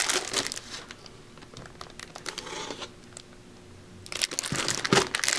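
Plastic wrap on skateboard decks crinkling and rustling as the decks are handled. It goes quieter for a few seconds in the middle, then the crinkling picks up again near the end.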